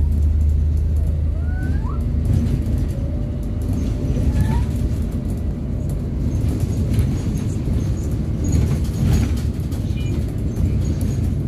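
Interior of a moving Wright Gemini 3 double-decker bus: a steady low engine and road rumble, with a few brief high rising squeaks in the first few seconds.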